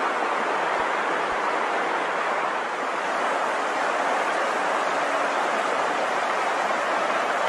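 Steady rush of the Beaverkill stream's flowing water.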